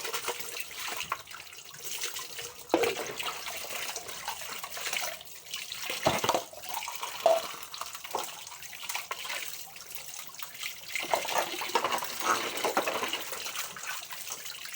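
Tap water running into a kitchen sink during hand dishwashing, with a few sharp knocks scattered through it.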